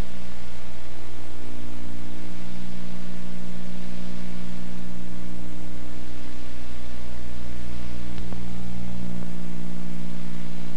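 Steady electrical hum with a stack of low tones over constant tape hiss on an old videotape soundtrack, with a faint click about eight seconds in.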